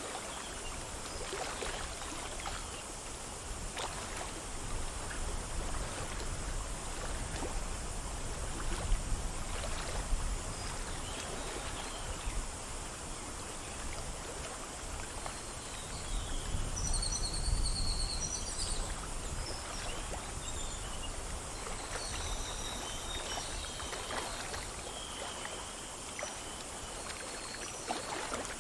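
A small stream flowing and splashing over stones, a steady rush of water. In the second half, birds give short high chirps, and a low rumble swells twice.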